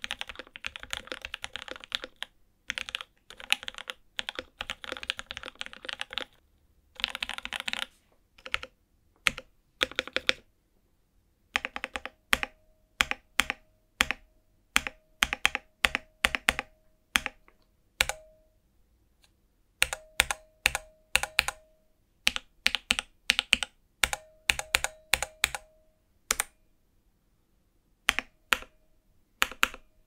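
Typing on a Cyberboard 75% mechanical keyboard with lightly lubed switches and dampened internals: a fast, thocky, low-pitched run of keystrokes, then slower bursts and single presses with pauses. Many of the later presses leave a brief ringing ping, the metallic ping that sounds around the right-side keys such as Enter.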